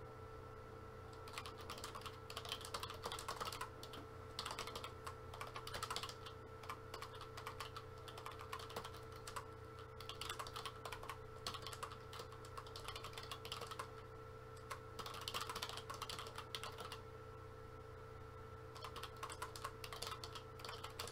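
Computer keyboard typing in bursts of rapid key clicks with short pauses between, over a faint steady electrical hum.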